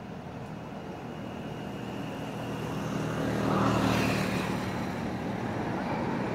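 A passing engine drone, growing louder to a peak about four seconds in, then easing off a little.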